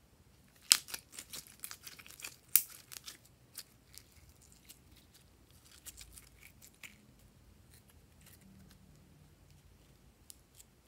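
Pink glitter slime being stretched and pulled apart by hand, giving a quick run of sticky clicks and pops in the first few seconds, then only scattered ones.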